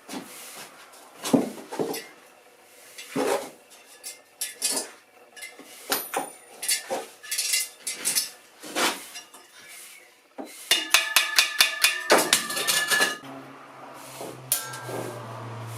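Metal parts clinking and knocking at an irregular pace, then a quick run of ringing metallic taps, about eight a second. A low steady hum starts near the end.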